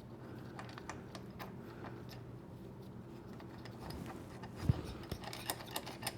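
Light scattered metallic clicks and taps as a bolt is threaded into a welded-on nut on the motorcycle frame, with one sharper knock after about four and a half seconds, over a faint steady hum.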